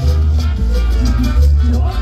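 Salsa music played loud through a sonidero sound system, with a prominent bass line under a steady percussion rhythm.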